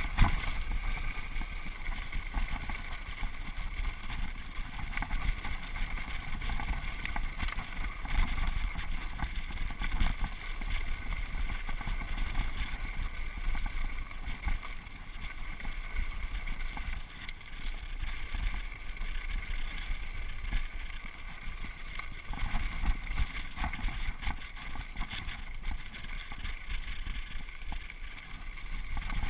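Mountain bike rolling fast down a rocky dirt trail: steady tyre rumble with constant clattering and rattling of the bike over the stones, and wind buffeting the microphone.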